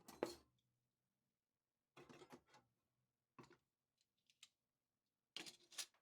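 Cutlery and other kitchen-drawer items being handled and set down: about five short bursts of clattering and light clinks, with pauses between.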